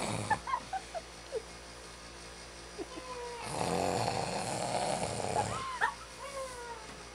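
A person fake-snoring: one long, rasping snore in the middle, with short high squeaks before and after it.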